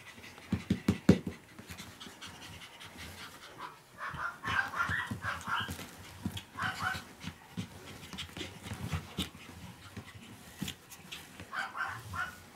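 Pomeranian puppies panting and giving short, high puppy yips in a few clusters during rough play. A few knocks about a second in are the loudest sounds.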